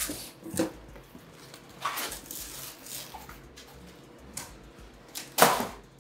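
Cardboard shipping box being opened by hand: flaps folded back and a styrofoam lid lifted out, making a few short scraping and rustling noises, the loudest about five and a half seconds in.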